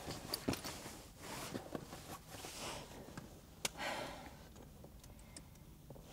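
Quiet handling noises: rustling and a few small clicks as things are taken out of a handbag, with one sharper click a little past halfway, and soft breaths between.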